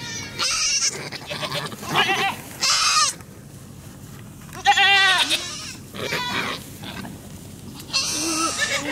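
A nanny goat and her young kids bleating: about eight short, quavering calls, the loudest about five seconds in.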